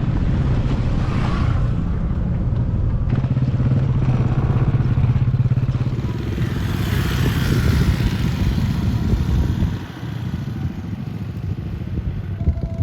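Motorcycle engine running, a steady low pulsing note that eases off and drops in level about ten seconds in.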